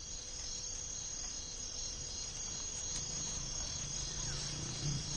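Steady high-pitched chorus of insects chirping, in the manner of crickets, unbroken throughout. A faint low rumble joins in for the last couple of seconds.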